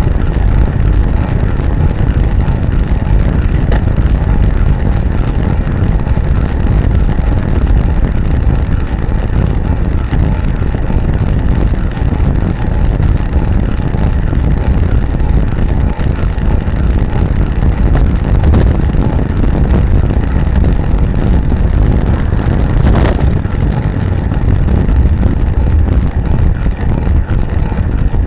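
Wind buffeting the microphone of a camera mounted on a recumbent bicycle ridden at speed: a loud, steady low rumble.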